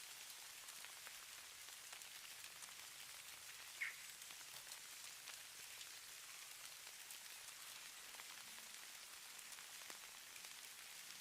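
Faint, steady hiss and fine ticking of falling snow landing on a surface, with one brief high chirp about four seconds in.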